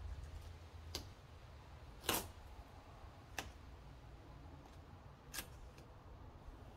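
Four faint, scattered clicks and taps, the one about two seconds in the loudest, from a plastic rear side splitter being held and shifted against a car's rear bumper, over a low steady rumble.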